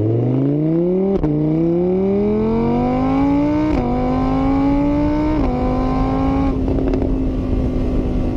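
Motor vehicle engine accelerating through the gears: its pitch climbs, drops sharply at each of three shifts, then holds steady at a cruising pitch.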